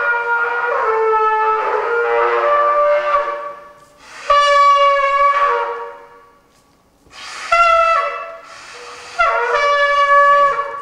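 A trumpet playing four short phrases of held notes with pauses between, the first about three seconds long.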